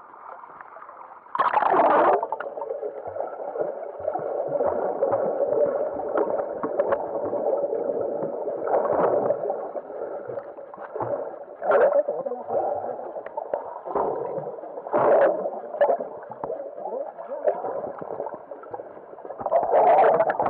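Underwater sound from a camera submerged in shallow seawater: muffled gurgling and bubbling that starts suddenly as it plunges in, about a second and a half in. Louder bursts of bubbles and sloshing come several times, near the end loudest.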